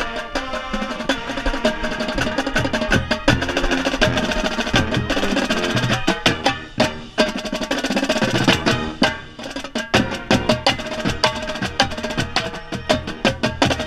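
Marching band playing, with a tenor drum set (quads) close up: rapid, dense drum strokes over brass holding notes.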